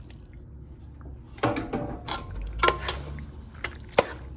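Kitchen utensil clinking and knocking against a pot while cooked pasta is added to a pan of Alfredo sauce, starting about a second and a half in, with a few sharp metallic clacks. The loudest comes near the end.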